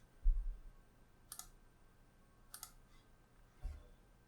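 Clicks of a computer mouse and keyboard: two sharp clicks about a second and a quarter apart, with a dull low thump just after the start and another near the end.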